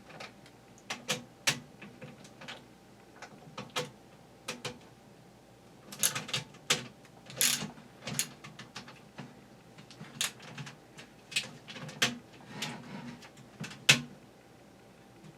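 Irregular sharp clicks and knocks of hands working a box fan's plastic housing and power switch while the replacement switch is fitted. The loudest knock comes near the end.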